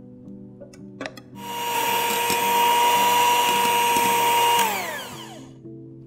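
Electric hand mixer beating whipping cream. After a few clicks about a second in, its motor starts with a steady whine, runs at constant speed, then is switched off near the end and the pitch falls as it winds down.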